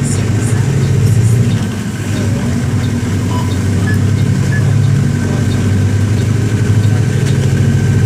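Mercedes-Benz OM-924 LA four-cylinder inline diesel engine of an OF-1721 BlueTec 5 bus running steadily, its level dipping about two seconds in and swelling again.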